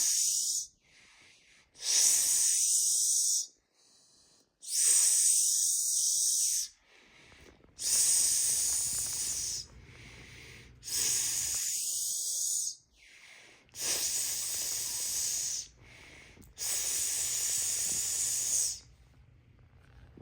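A person repeatedly hissing a long, sustained English "sss" sound, made with the tongue tip against the back of the upper teeth and the roof of the mouth. There are seven hisses, each one and a half to two seconds long and about three seconds apart; the first is already under way and ends about a second in.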